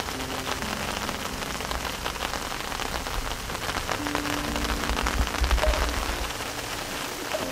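Steady rain falling on wet stones and leaves, an even hiss dense with small drop ticks. A brief low rumble swells about five seconds in.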